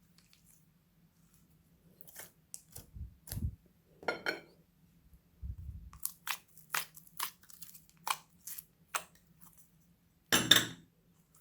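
Slime with mixed-in add-ins being squeezed and kneaded by hand, giving a run of sharp crackles and pops with a few soft low thuds. The loudest crackle comes near the end.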